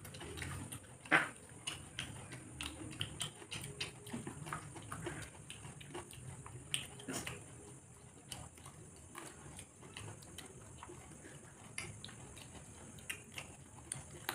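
Two people eating by hand: wet chewing and lip-smacking with many small clicks, the sharpest about a second in.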